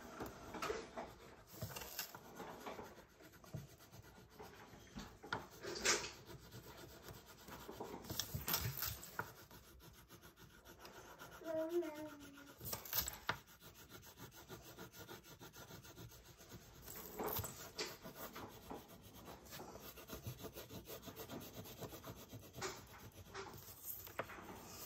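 A crayon rubbing back and forth on paper as an area of a drawing is coloured in, in uneven runs of scratchy strokes with short pauses.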